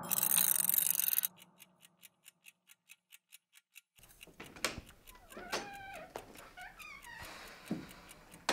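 A brief burst of hiss that cuts off, then steady clock-like ticking at about four or five ticks a second. Through the ticking, a door's hinges creak in several wavering squeaks as it swings open.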